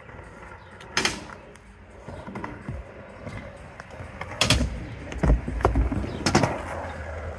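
Skateboard wheels rolling on concrete with a low rumble, and several sharp clacks: one about a second in and a cluster between four and a half and six and a half seconds in.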